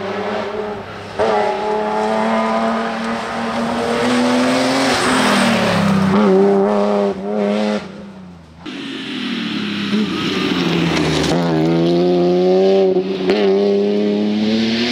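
BMW Z3 M rally car's straight-six engine at full throttle, its pitch falling and rising through braking, gear changes and acceleration. The sound cuts off abruptly about eight and a half seconds in, then the engine is heard again, slowing and then revving up hard.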